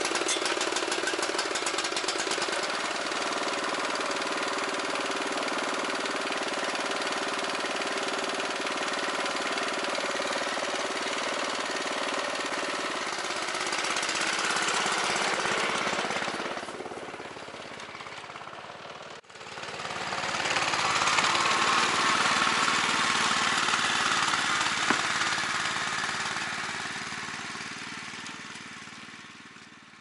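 Neva MB-23 walk-behind tractor's small petrol engine running steadily. Its revs rise for a couple of seconds around the middle, then drop. In the second half it runs harder and louder, then fades away near the end.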